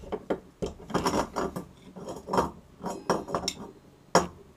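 Steel open-end spanners clinking and scraping against each other and against a gearbox shaft nut and gear as they are worked by hand, with a sharp metal clank about four seconds in.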